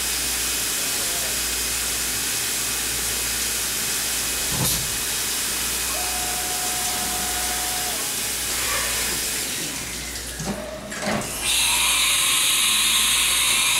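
Haas vertical machining center milling a Shear Hog tool body under flood coolant, with the coolant spray giving a steady hiss. There is a single click about four and a half seconds in, and a thin steady whine for about two seconds from six seconds in. In the last couple of seconds a louder, harsher hiss takes over.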